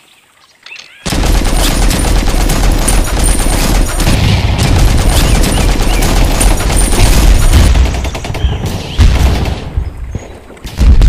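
Machine-gun fire sound effect: a rapid, continuous stream of shots starting about a second in and lasting about seven seconds, followed by two heavy explosion booms near the end.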